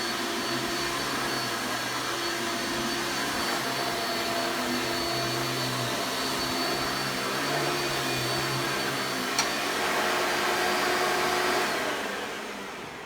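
1990s vacuum cleaner motor running steadily with a high whine and a single sharp click about nine seconds in, then switched off near the end and winding down.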